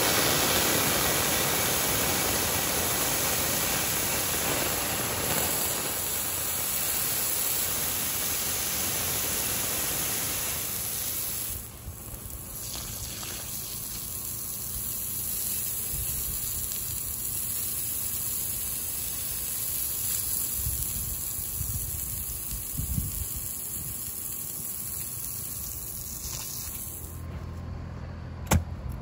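Garden hose spraying water onto a hot aluminium anthill casting, a steady rushing hiss of spray and steam. About a third of the way in it drops to a quieter spray, and a sharp click comes near the end.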